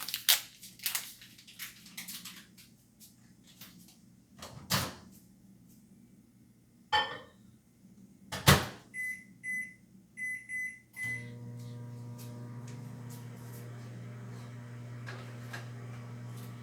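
A microwave oven being used: handling clicks, its door shut with a thump, several keypad beeps, then a steady low hum as it starts running, about 11 seconds in.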